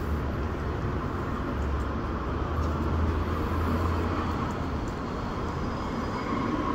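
Steady low background rumble with a deep hum that drops away about five seconds in.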